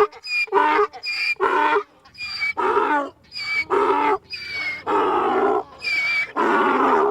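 Donkey braying: about six hee-haw cycles in a row. Each is a short, high-pitched squeal on the in-breath followed by a longer, lower, louder call on the out-breath. The bray stops right at the end.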